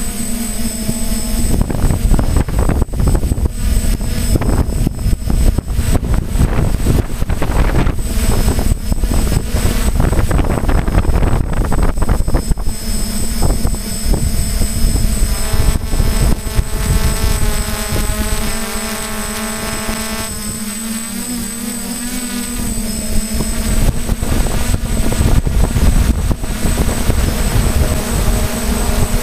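Hexacopter drone's electric motors and propellers running steadily, heard through its onboard camera's microphone. Wind rumbles on the microphone for much of the first half, and the motor tone shifts and eases a little past the middle.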